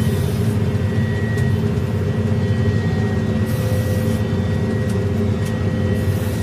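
KZS-812 combine harvester running steadily while harvesting grain: a constant low drone from its D-260 inline-six diesel, with steady thin whines over it.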